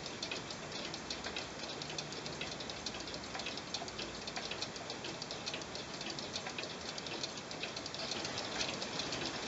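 Several mechanical pendulum cuckoo clocks ticking at once, among them a vintage Lötscher Brienz chalet clock. Their ticks fall out of step with each other, giving a dense, uneven clatter of clicks.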